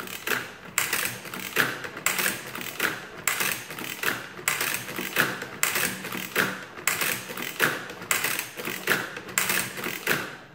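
Burroughs Class 3 adding machine's mechanism clattering as its handle is worked over and over, the bursts coming in close pairs about once a second.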